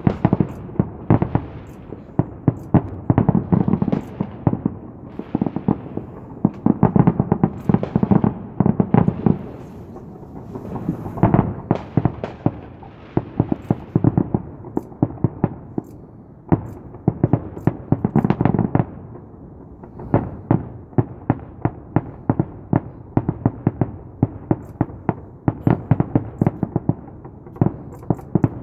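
Fireworks going off in a dense, continuous barrage of rapid cracks and bangs, with heavier booming clusters several times.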